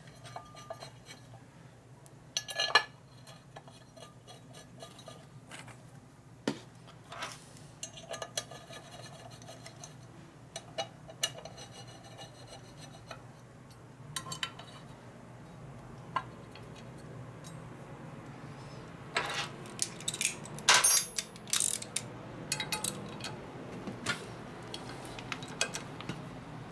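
Scattered metallic clinks and clicks of hand tools and bolts being handled and tightened, over a steady low hum. The bolts are being fitted with blue Loctite; the clinks come in clusters and are busiest about three quarters of the way through.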